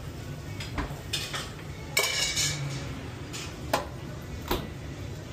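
Metal kitchen utensils clinking and clanging against stainless-steel pans and containers, in a handful of separate knocks. The loudest, about two seconds in, rings on briefly like struck metal. A steady low hum runs underneath.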